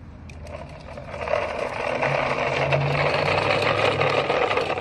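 Vehicle running: a steady low hum with a rolling, rattling noise over it, growing louder about a second in.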